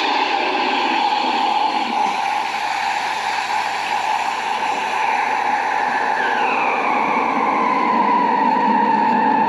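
Steam wand of a three-group Conti espresso machine steaming milk in a stainless steel pitcher: a steady loud hiss with a whistling tone that slowly falls in pitch.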